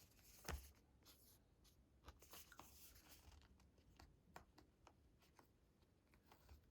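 Faint rustling and light clicks of hands handling unboxing packaging, with one sharper tap about half a second in.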